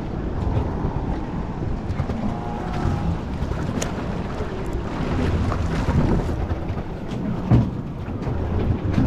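Wind buffeting the microphone on a small fishing boat at sea, with water sloshing against the hull and a couple of short knocks.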